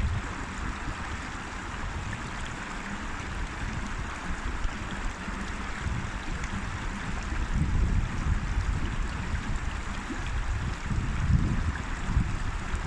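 A river flowing, a steady rush of running water, with an uneven low rumble that comes and goes and grows stronger in the second half.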